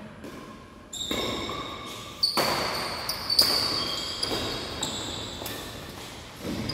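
Badminton rally in a large hall. Sharp racket strikes on the shuttlecock come about a second, two and a quarter, and three and a half seconds in, and sneakers squeak on the court floor.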